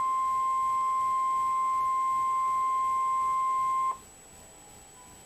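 NOAA Weather Radio Warning Alarm Tone, a single steady 1050 Hz tone, which cuts off abruptly about four seconds in and leaves a faint hiss. The tone signals that a warning message is about to follow, here a severe thunderstorm warning.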